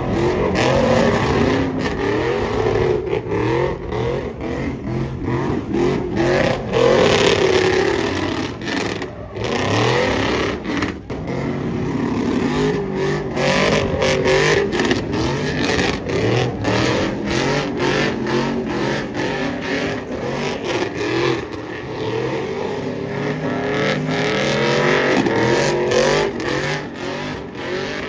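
Lowered Chevrolet Silverado pickup drifting and doing burnouts: its engine revs hard, the pitch rising and falling again and again, over the rush of spinning, smoking tyres on asphalt.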